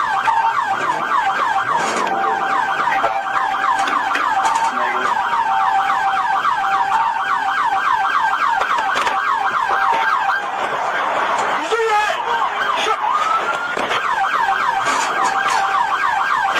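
Police car siren in its fast yelp mode: quick rising sweeps repeating several times a second. About two-thirds of the way through, the sweeps briefly give way to a slower glide, then the fast yelp resumes.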